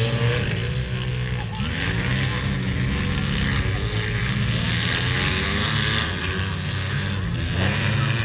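Demolition derby cars' engines running and revving in the arena, their pitch rising and falling unevenly.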